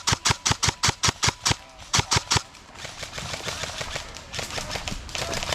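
Airsoft gun firing a rapid string of sharp single shots, about six a second, stopping about two and a half seconds in.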